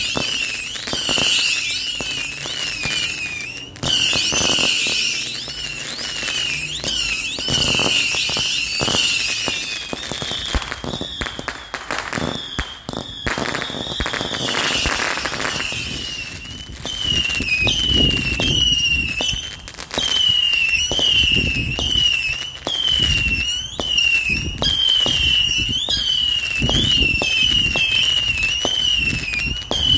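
A 325-shot Saturn missile battery firing in rapid succession: a stream of short whistling shots, several a second, mixed with sharp pops and cracks. The whistles thin out for a few seconds in the middle, then come densely again.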